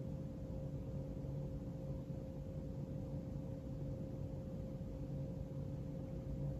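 Steady low background hum with a faint steady tone in it, unchanging throughout.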